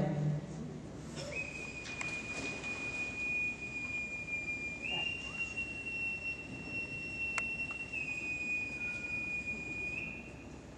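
Boatswain's call piped in one long, high whistle that starts about a second in and is held for about nine seconds. It steps up in pitch about halfway through, drops back a few seconds later, and rises again briefly near the end.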